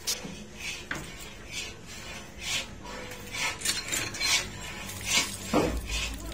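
A plate scraping and scooping crumbly sohan halwa out of a large iron karahi, in a string of short rasping scrapes and clinks against the pan's metal. A low steady hum comes in near the end.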